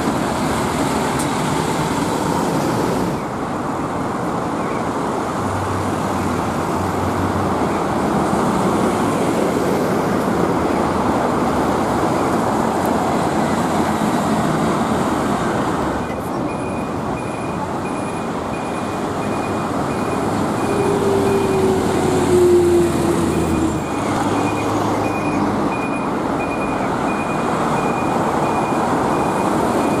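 Road traffic: buses and trucks driving past with a steady rumble of engines and tyres. The sound changes abruptly at a few cuts. A faint evenly spaced beeping runs through the second half, and there is a brief falling tone about two-thirds of the way through.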